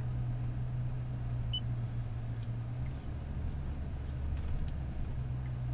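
Steady low drone of engine and road noise inside a Toyota's cabin while driving slowly, with one short high beep from the infotainment touchscreen about one and a half seconds in.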